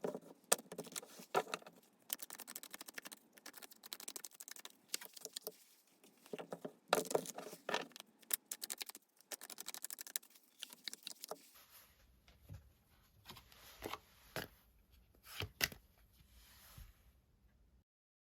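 Tarot cards being shuffled and handled: a dense run of crisp card flicks and rustles, with short pauses between bursts.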